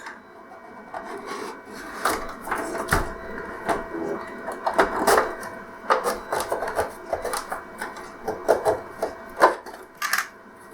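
Plastic pry pick scraping along the seam of an LCD TV's plastic casing, with irregular sharp clicks and rubbing as the pick is worked in to release the case clips.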